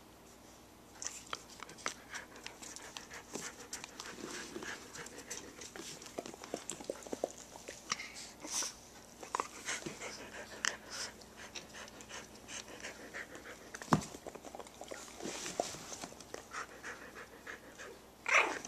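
Pomeranian puppies and Australian shepherds playing on a hardwood floor: dogs panting, with many quick claw clicks and scratches on the wood. A sharp thump comes about 14 seconds in, and a short, loud, pitched cry comes near the end.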